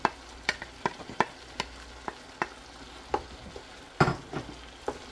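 Wooden spatula tapping and scraping against a bowl and pan as enoki mushrooms are pushed in and stirred through sliced vegetables, about two or three taps a second, with one louder clatter about four seconds in. A faint sizzle of the vegetables frying runs underneath.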